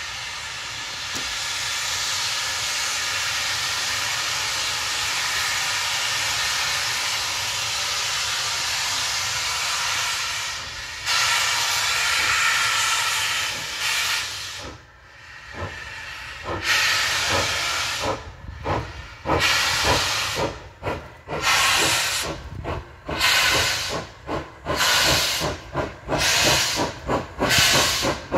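Ivatt Class 2MT tank steam locomotive blowing off a steady hiss of steam, louder about eleven seconds in. About halfway through it starts away with chuffs from the chimney that quicken, steam hissing from its open cylinder drain cocks.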